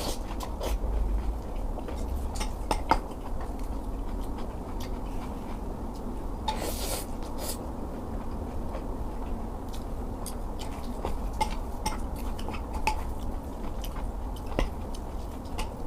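Eating sounds: a spoon clicking against a bowl now and then, with chewing between, and a brief crunchy or slurping burst about six and a half seconds in.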